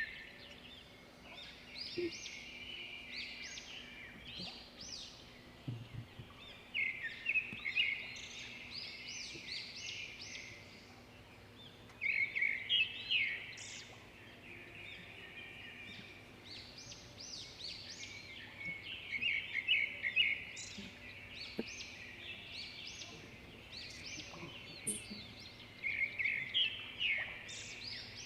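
A bird singing outdoors: bursts of quick, high chirping phrases repeated every five or six seconds, over faint steady background noise.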